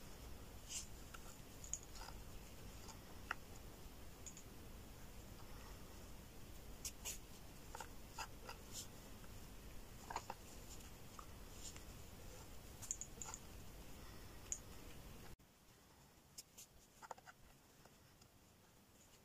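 Faint scattered rustles and light clicks of black nylon jade-thread cord being worked between the fingers into a four-strand braid. The background hiss drops away about fifteen seconds in.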